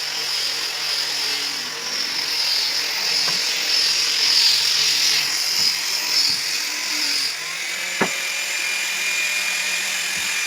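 A small electric power tool running steadily with a high whine. About seven seconds in, the whine gives way to a lower, steadier tone.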